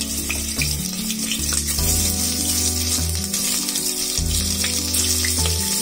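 Raw chicken pieces sizzling in hot mustard oil in a pressure cooker as they are dropped in: a steady frying hiss with small spattering crackles. Background music with low held notes plays underneath.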